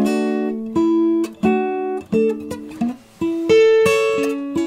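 Acoustic guitar being played, plucked chords and notes ringing out, with a brief pause about three seconds in.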